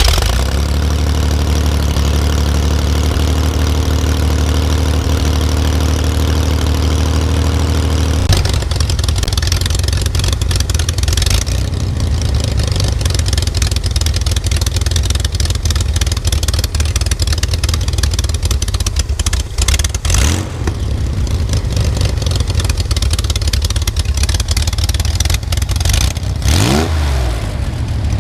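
Air-cooled Corvair flat-six engine in a sand rail starting cold on the choke after sitting a few weeks, then running steadily. Its note changes about eight seconds in, and the revs rise briefly twice in the second half.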